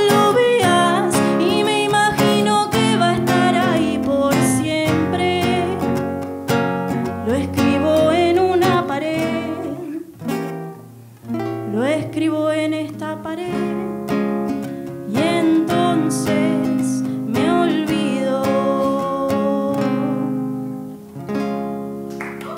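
A woman singing to her own nylon-string classical guitar, picked and strummed. The voice and guitar thin out and fade on the song's closing notes near the end.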